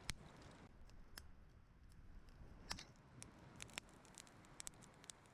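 Near silence, broken by a few faint, sharp clicks at irregular intervals.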